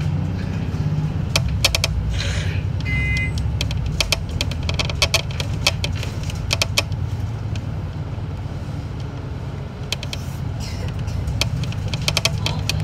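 City bus under way, heard from inside: a steady low engine and road rumble with frequent rattling clicks. A short beep comes about three seconds in, and there are two brief hisses.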